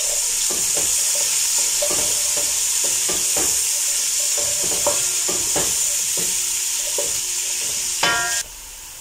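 Chopped onions sizzling in hot oil in a pot while a wooden spoon stirs them, scraping the pot in repeated strokes; the onions are being fried until translucent. The sizzle cuts off suddenly near the end.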